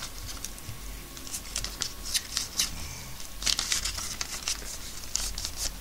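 A sheet of paper being folded and creased by hand into a paper airplane's wing: a run of short, crisp rustles and crinkles, busiest about three and a half seconds in.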